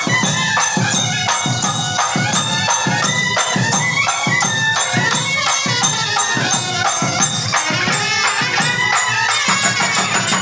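Loud traditional festival music: a high, wavering melody over a steady drumbeat of about two beats a second, with jingling on top.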